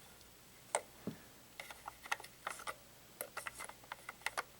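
Irregular small clicks and taps of batteries being handled and pressed into the plastic battery compartment of a handheld RC transmitter.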